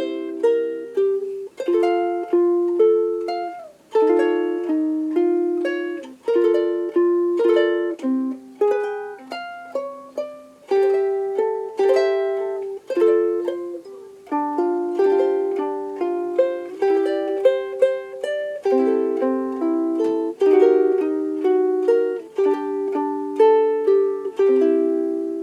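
Cultivate Ukulele D0M soprano ukulele, a Ditson-style dreadnought body of solid African mahogany, played chord-melody style. Chords sit low, with a melody above them, and each plucked note rings out and decays.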